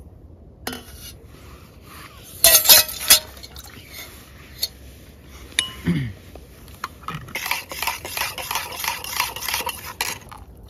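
Metal camp cookware clinking and scraping: a spoon against a stainless steel mug and pot. The loudest clinks come about two and a half seconds in, and a couple of seconds of quick, dense clattering follow near the end.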